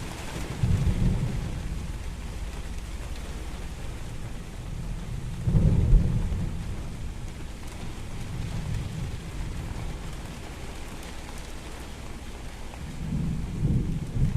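Steady rain falling in a thunderstorm, with thunder rumbling over it: a rumble just after the start, the loudest one about halfway through, and another near the end.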